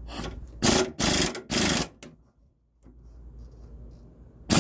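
Pneumatic air ratchet running in short bursts as it spins off a sway bar end link nut: three quick bursts about a second in and another near the end.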